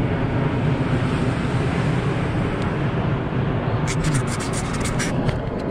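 Jet airliner flying low overhead, a steady loud roar with a low rumble. A burst of crackling clicks comes near the end.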